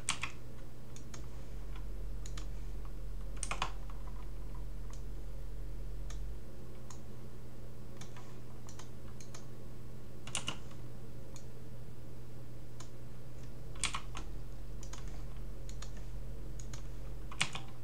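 Irregular computer mouse clicks and keyboard key presses, about five of them sharper than the rest, over the steady low hum of a computer fan.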